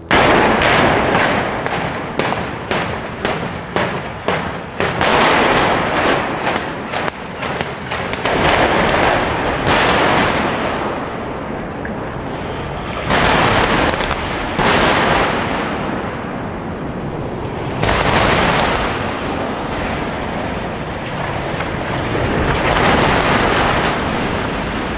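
Demolition charges going off in the felling of concrete power-plant smokestacks. A rapid string of sharp blasts runs for the first eight seconds or so, followed by several heavy rolling booms that swell and fade.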